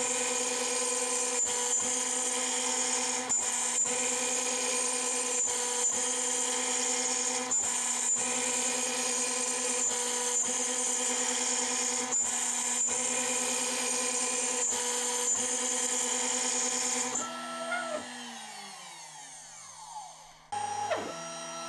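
CNC router spindle with a tapered ballnose bit cutting a pocket in walnut: a steady high-pitched whine over the cutting noise. About seventeen seconds in, the cutting stops and the spindle winds down with falling pitch, and a different sound starts just before the end.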